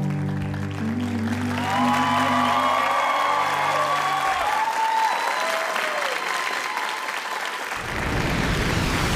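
Audience applauding and cheering, with voices whooping, while the closing music fades out. A deep rumble swells in near the end.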